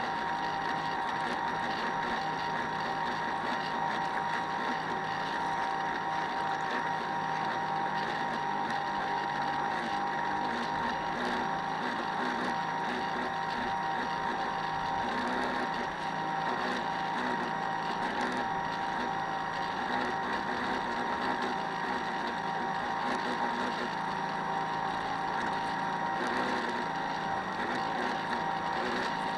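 Radio-controlled model boat's motor running steadily, a constant whine over water and motor noise that holds without change.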